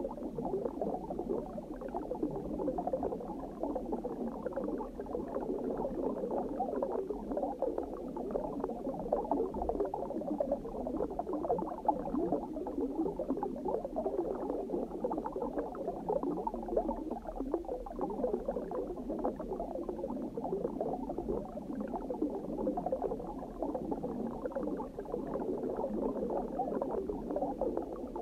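Steady underwater bubbling: a dense, even stream of small bubbles, dull in tone with little sharp top.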